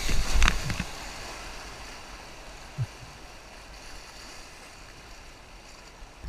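River water rushing steadily around a kayak, with a splash and low wind buffeting in the first second, and a single soft thump about three seconds in.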